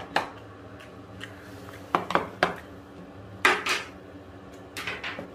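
Side-dish containers and dishes being opened and set down on a table, clacking sharply about eight times in small clusters, with some clinking of dishes.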